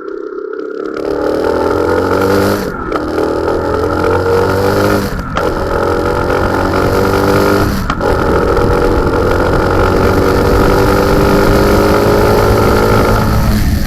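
Bajaj Boxer 150X's single-cylinder four-stroke engine accelerating under way, rising in pitch and dropping off briefly three times as the rider changes gear, then running steadily at speed.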